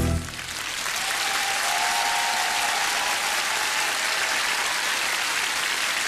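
Large concert audience applauding steadily, just after a choir's last sung note dies away at the start. A faint held tone sounds through the clapping for about two seconds early in the applause.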